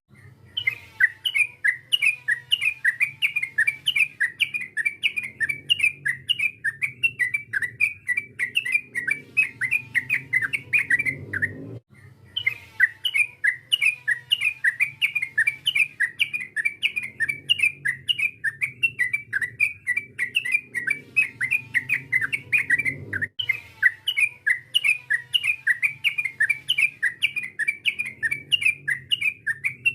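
Yellow-vented bulbul (trucukan) calling: a fast, continuous run of sharp, repeated chattering notes, about three or four a second, played as a lure call to provoke other trucukan into singing. The sequence cuts off abruptly and restarts twice.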